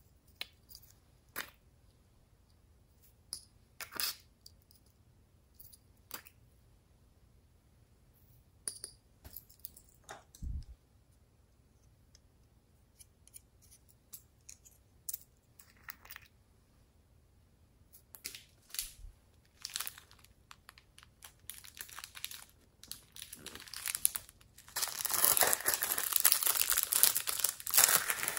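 Scattered light clicks and taps of small plastic containers being handled, then a few seconds before the end a loud, continuous crinkling and tearing as a packet or sheet of decorations is torn and peeled open.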